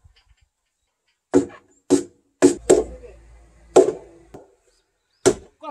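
Six sharp knocks on a heavy log beam, each with a short ringing tone, as it is struck to seat it onto the notched post tops.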